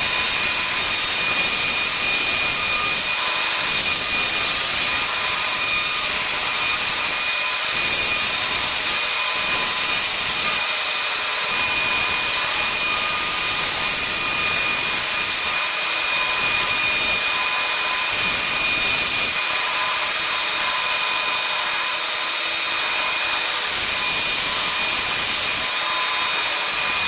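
Bench belt sander running with a steady high whine, its belt grinding the edges of a formed 3 mm steel saddle clamp and throwing sparks. The grinding swells and eases every few seconds as the piece is pressed on, lifted and turned.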